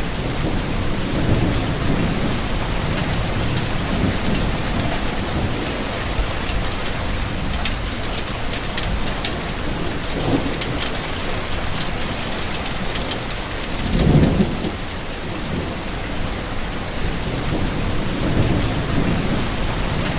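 Steady heavy rainfall, a dense even hiss of drops, with several low rumbles swelling and fading. The loudest rumble comes about two-thirds of the way through.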